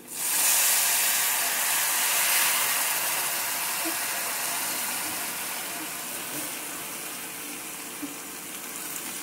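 Tamarind water is poured into hot coconut oil with fried spices. It starts sizzling at once, then slowly dies down as the liquid heats.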